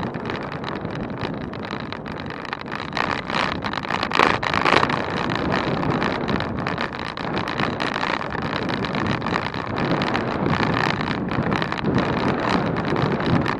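Wind rushing over the microphone on a moving bicycle, a steady rush that swells in a gust about four seconds in.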